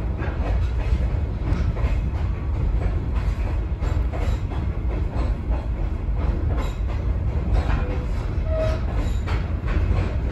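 Former Union Pacific caboose rolling along the track: a steady low rumble with repeated clicks from the wheels, and a short squeal near the end.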